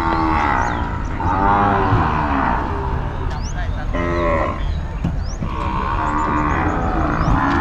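Several cattle mooing, one long call after another, often overlapping.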